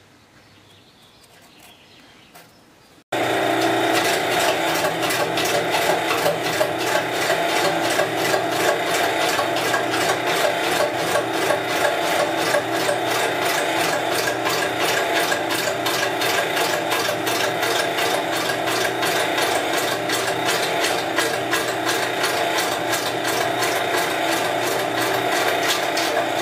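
A few seconds of quiet room tone, then, from about three seconds in, a benchtop metal lathe running and turning a large wooden disc: a steady gear hum with a rapid, even ticking clatter.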